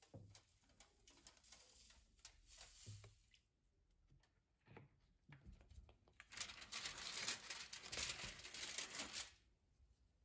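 Liquid pouring into an aluminium-foil tray over a rusty hand saw blade, then foil crinkling and wet scraping as the soaked blade is handled and lifted out, loudest for about three seconds past the middle.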